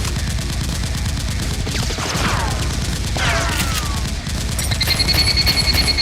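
Rapid automatic gunfire, a continuous burst of shots, with two falling whistles about 2 and 3 seconds in and a steady high tone coming in near the end.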